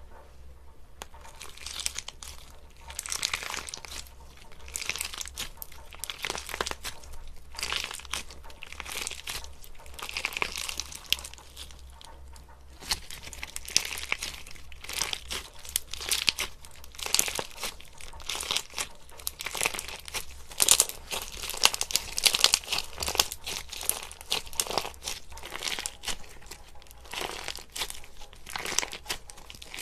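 Crunchy slime with embedded beads being squeezed, stretched and poked by hand, giving a continuous run of dense crackling, popping and crunching, with louder bursts about 20 to 23 seconds in.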